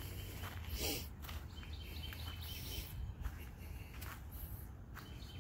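Woodland ambience with a steady low rumble, a brief rustle about a second in, and a faint, thin, high bird call partway through.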